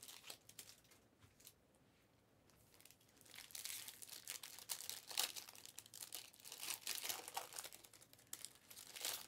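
Foil wrappers of Panini Prizm Fast Break basketball card packs crinkling and tearing as packs are opened, in quick rustles that start about three seconds in.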